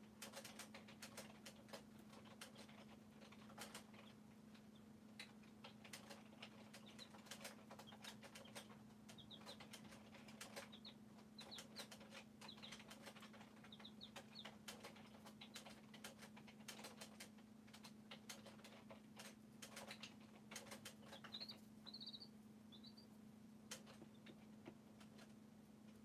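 Baby chicks scratching and pecking in straw bedding: many faint light clicks and rustles, with a few short runs of soft high peeps near the middle and again a little before the end. A steady low hum runs beneath.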